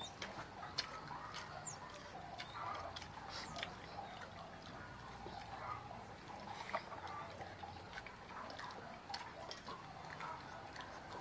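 Eating by hand from ceramic plates: scattered small clicks and taps of fingers, food and plates, coming irregularly several times a second.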